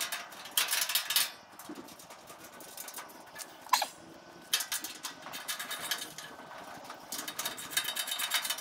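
Ratchet wrench with an 11 mm socket clicking in three quick runs as it backs out the bolts holding a gas grill's side shelf, with one short sharp chirp a little before halfway.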